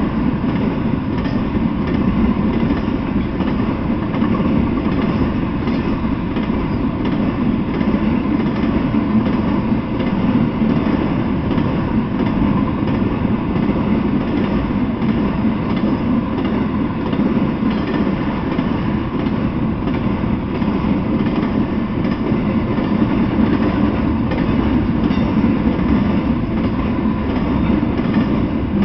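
Intermodal freight train rolling steadily past: a continuous rumble of steel wheels on the rails, with no horn or single loud bangs.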